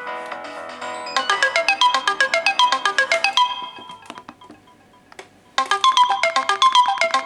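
A Samsung Galaxy S4 mini phone's speaker plays a ringtone melody: a fast run of short, quickly decaying notes. It stops about three and a half seconds in, leaving a near-silent pause of about two seconds with a few faint clicks, then the phrase starts again.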